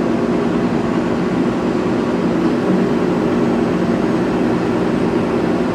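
Vehicle engine running steadily under load, a constant drone with several low tones.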